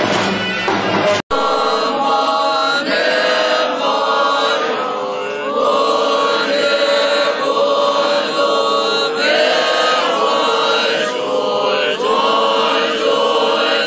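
A group of voices chanting a slow, melodic prayer in long held notes that slide between pitches. The chant begins after a short break about a second in.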